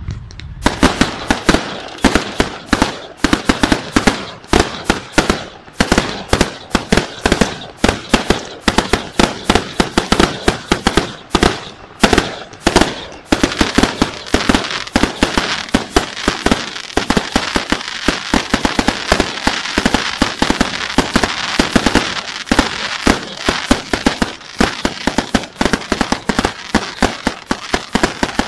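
Fireworks display: shells bursting in quick succession, several loud bangs a second, over a steady crackling that thickens from about halfway through.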